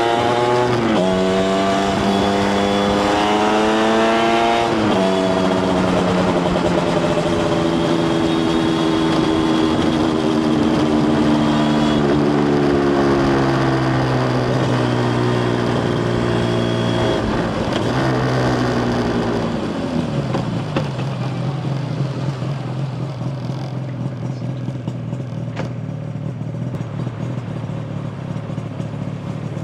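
Yamaha TZR250 1KT two-stroke parallel-twin engine accelerating with rising pitch, shifting up near the first second and again around five seconds in. It then holds and slowly eases off before dropping to a steady low idle about twenty seconds in.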